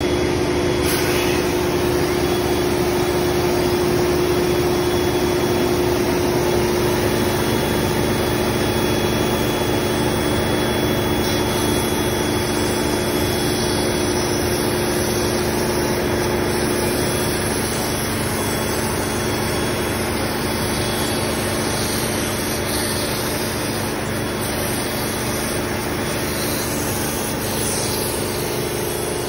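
MultiCam CNC router cutting cell-cast acrylic sheet: the spindle and the dust-collection vacuum on its head run together as a loud, steady machine drone with a held whine. It gets a little quieter about halfway through.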